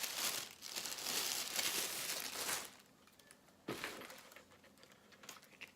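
Packaging crinkling and rustling as the binoculars are unwrapped. It stops a little under three seconds in, followed by a single knock and a few faint clicks as they are handled.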